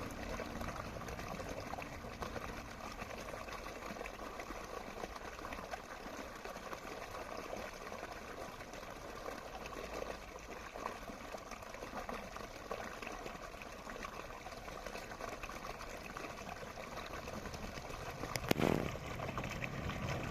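Water running and trickling steadily, as in a winter stream flowing. About two seconds before the end there is one brief, louder thump.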